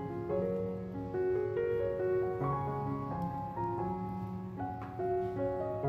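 Background piano music: a slow, gentle melody of held notes over soft chords.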